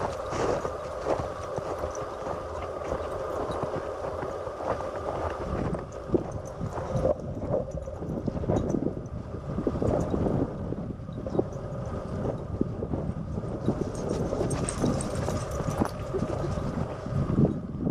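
Hikers' footsteps crunching along a snowy trail, an uneven run of steps.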